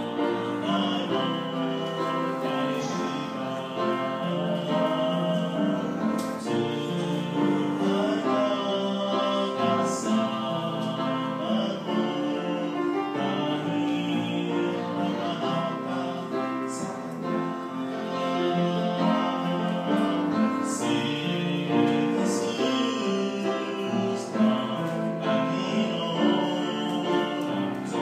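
A man singing a slow song to upright piano accompaniment, holding long notes.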